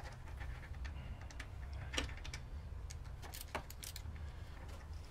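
Light metallic clicks and scrapes of a 5 mm Allen key working at the screw of an idle air control valve to loosen it, with two sharper clicks about two and three and a half seconds in. A low steady hum lies underneath.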